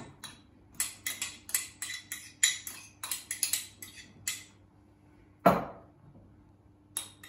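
Metal spoon clinking and tapping against a small ceramic ramekin and the saucepan rim, a rapid run of short ringing clicks for about four seconds as chopped onion is knocked out into the pan. A single louder knock follows about five and a half seconds in.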